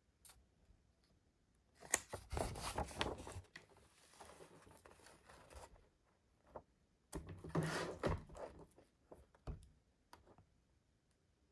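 Two bursts of rustling, tearing handling noise, as of plastic packaging or bag material being pulled and torn, with a few sharp clicks between them.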